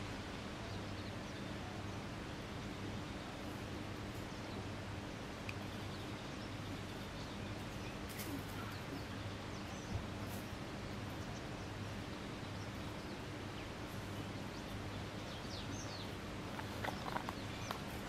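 Steady outdoor background noise with a low, even hum, a few faint bird chirps, and some light rustling near the end.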